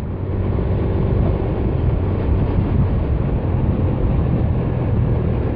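Honda Beat FI scooter's small single-cylinder engine running steadily while riding, mixed with wind and road noise.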